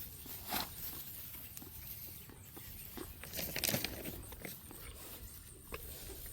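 Scattered soft clicks and rustling, busiest about three and a half seconds in, from a farm animal taking and chewing a hand-fed treat and shifting about.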